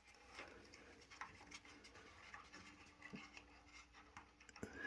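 Near silence with faint scattered clicks and scratches of wires being worked onto a water heater thermostat's screw terminals by hand.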